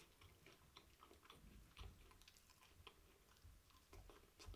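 Faint chewing: soft, irregular mouth clicks and smacks of someone eating fried chicken wings.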